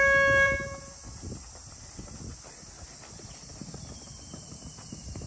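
A loud held tone dies away within the first second, then several people run on a dirt field, their footsteps a soft irregular patter that fades as they move away.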